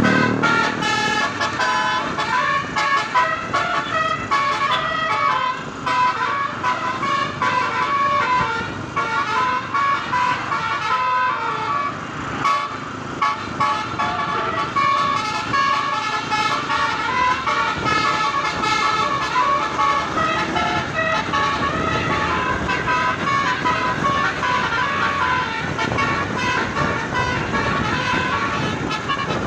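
Indonesian bus 'telolet Basuri' multi-tone horn playing a melody: several horn tones stepping up and down in pitch, sounding almost without a break.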